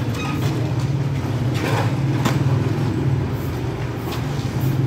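Small motorcycle engine idling with a steady low hum, and a few light clicks about two seconds in.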